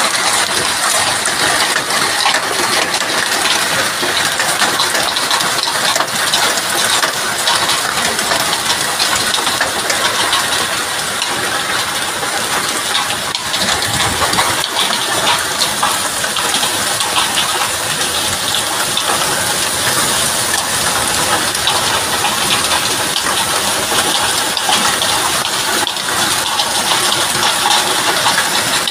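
Heavy hail, stones the size of ping-pong balls, pelting down in strong wind: a loud, dense, unbroken clatter of countless small impacts.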